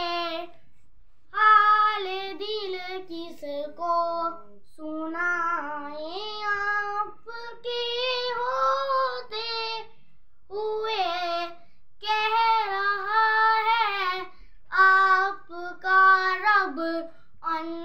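A young boy singing an Urdu naat unaccompanied, in a high voice, in short melismatic phrases with brief breaths between them.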